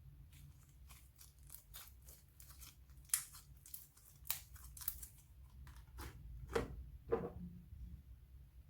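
Slime being squeezed and stretched by hand, giving a run of sharp crackling clicks and pops. Two louder, lower pops come near the end, the last one dropping in pitch.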